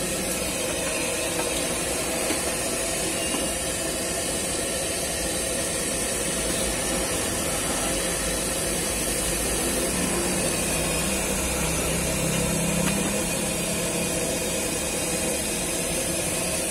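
Gas stove burner running steadily under a wok of simmering seblak broth, giving a constant hiss. A low drone swells briefly about ten seconds in.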